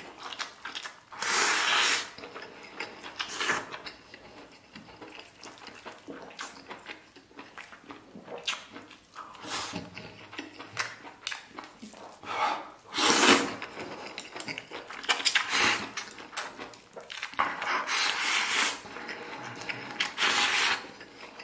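Eating sounds: about half a dozen loud slurps as spicy noodles and tripe are sucked in off chopsticks, each about a second or less. Quieter wet chewing between them.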